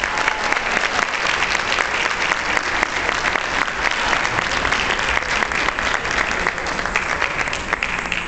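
Audience applauding, a dense, steady clapping of many hands in a large hall.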